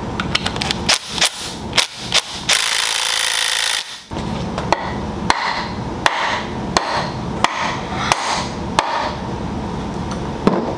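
A cordless drill drives in the bolts of a BMW M20 engine's front timing cover, with sharp clicks and then about a second of steady running. It is followed by about seven even hammer blows, each roughly 0.7 s apart, on a wooden block held against the timing cover.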